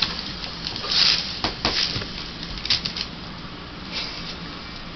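Paper rustling and tearing in short, irregular bursts as a husky rips at a wrapped present, the loudest about a second in.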